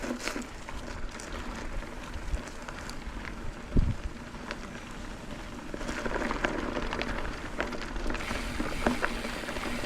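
Mountain bike rolling along a dirt trail: a crackly tyre noise with many scattered clicks and rattles, and one heavy thump about four seconds in. The clicking gets busier in the second half.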